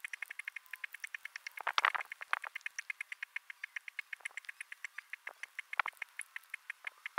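Atlas moth caterpillar chewing a leaf, heard close up as a rapid, even run of crisp crunching clicks, about eight a second, with a few louder bites now and then.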